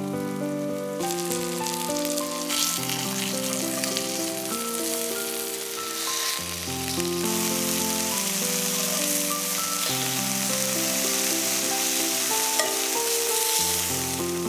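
Floured chicken breasts sizzling steadily in oil in a cast-iron skillet, the sizzle starting about a second in. Soft background music with sustained melodic notes plays throughout.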